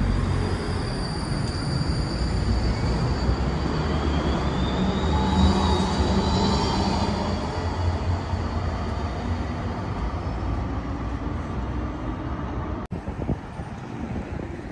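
Tram running on its rails, a steady rumble with a high whine that rises in pitch for a few seconds near the middle.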